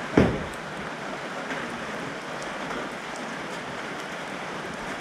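Steady rain falling, an even hiss of rain. A brief low thump comes just after the start.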